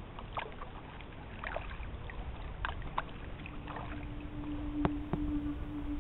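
Kayak paddle dipping and dripping in the water in short, scattered splashes over a low murmur of moving water. A single held low note of music fades in a little past halfway.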